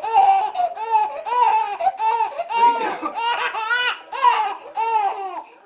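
Baby laughing hard in a long run of short bursts, about two to three a second, each rising and falling in pitch.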